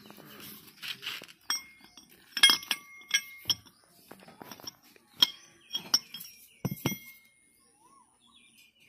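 Steel parts of a Kubota harvester's belt tension pulley clinking against each other as they are handled, about eight sharp knocks, several of them ringing briefly.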